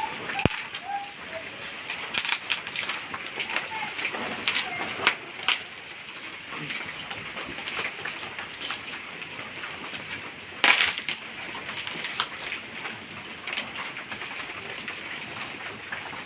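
Irregular clicks, taps and rustles of items being handled and unpacked, with one louder knock about ten and a half seconds in.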